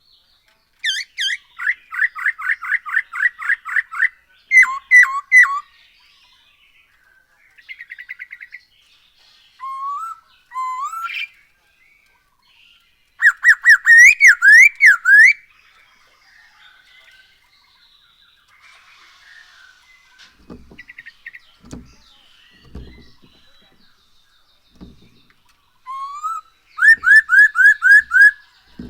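Black-throated laughingthrush (poksay hongkong) singing: loud bursts of rapidly repeated clear whistled notes, with rising slurred whistles and softer chatter in between. A few faint low knocks come in the second half.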